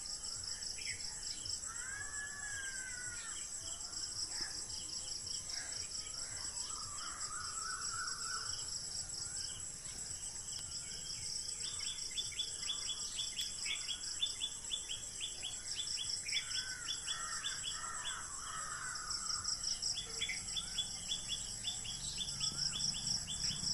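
Wild birds calling over a steady, pulsing high-pitched drone of chirring insects. The calls include curving whistled glides, short warbling trills, and long runs of rapid ticking notes, heard twice in the second half.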